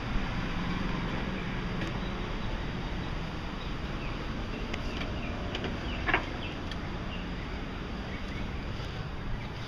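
Outdoor ambience of steady road traffic noise with scattered bird chirps, and a brief sharp sound about six seconds in.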